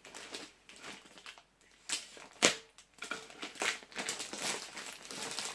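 Plastic packaging crinkling and crackling as it is handled and pulled open, with a couple of sharper snaps about two seconds in.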